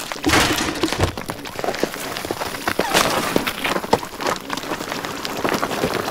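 Dense, irregular crackling and clicking as a lumpy dung ball, stuck with junk, is pushed and rolled up a wooden plank: a cartoon sound effect of the ball grinding over the wood.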